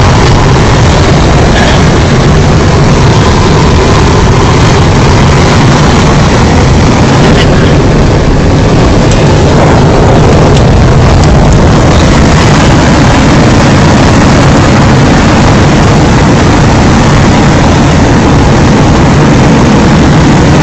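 Strong wind blowing across the microphone: a loud, steady rumble and hiss with no let-up.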